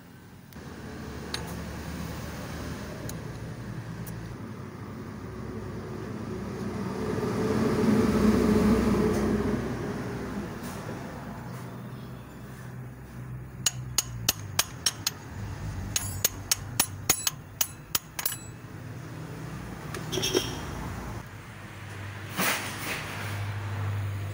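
A road vehicle passing, a low rumble that swells and fades about eight seconds in. Then two quick runs of sharp metallic clicks, about four or five a second, from hand tools worked on the engine's timing-belt parts, and a few single knocks near the end.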